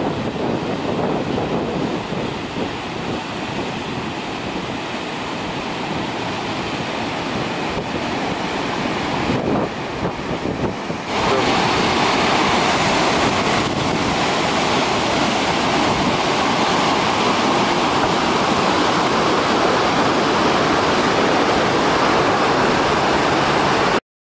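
Whitewater rapids of a fast mountain river, class 4 to 5, a steady rush of churning water. About eleven seconds in the rush becomes louder and brighter, and it cuts off suddenly near the end.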